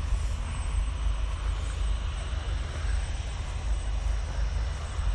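Wind buffeting the microphone: a steady, choppy low rumble over a faint outdoor background hiss.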